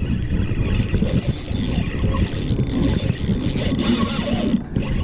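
Wind buffeting the camera microphone: a loud, uneven low rumble with hiss above it.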